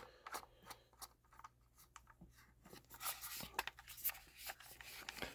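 Small clicks and scraping from handling a CO2 air revolver as a threaded part, likely the CO2 compartment cap, is turned by hand. It opens with one sharp click, and the scraping comes in about three seconds in.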